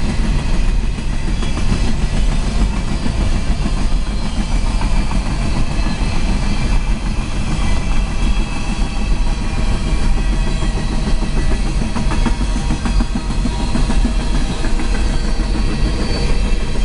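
Steady heavy rumble of a car driving alongside a moving freight train, the road and wind noise mixed with the train's rolling cars and wheels, heard from inside the car.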